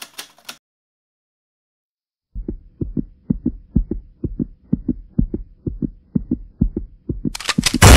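Heartbeat sound effect: low, even thudding of about two double beats a second, starting a couple of seconds in and quickening near the end into a rapid run of sharp clicks. A brief crackly burst sounds at the very start.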